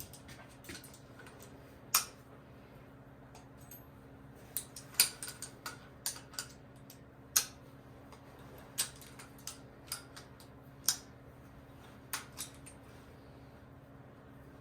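Scattered sharp metallic clicks and clinks of a wrench working a threaded adapter fitting off the back of an engine block, about a dozen at irregular intervals, over a faint steady hum.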